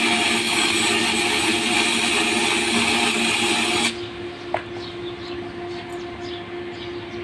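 Stick-welding arc on a steel pipe, a loud steady crackling hiss, cutting off suddenly about four seconds in as the arc is broken. A quieter steady hum remains after it.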